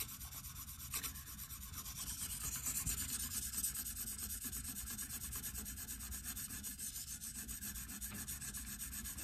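Diamond sharpening plate on a KME guided-rod sharpener rubbing back and forth across the edge of an AUS-10 steel knife blade in quick, light strokes: a soft, steady scraping rasp.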